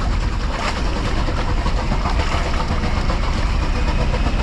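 Motorcycle engine running steadily while riding, under a constant rushing noise of wind and wet road.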